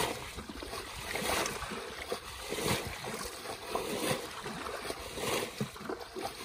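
Shallow muddy water sloshing and splashing irregularly as people wade and grope by hand through the mud for fish.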